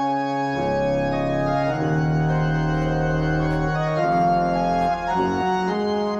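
Organ playing held chords, with a deep pedal bass coming in about half a second in and the chords changing every second or so. This is the introduction to the sung Alleluia of the Gospel acclamation.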